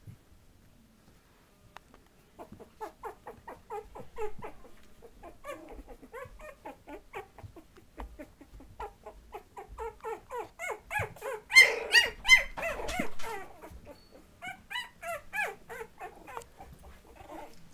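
A litter of 20-day-old Patterdale terrier puppies whining and yipping as they play, with many short high calls following quickly on one another. The calls are busiest and loudest about eleven to thirteen seconds in.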